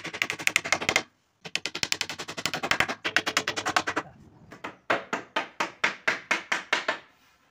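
Claw hammer driving nails into a pine table frame. First comes a fast run of light taps, about ten a second, with a short break about a second in. Near the end come slower blows, about four a second.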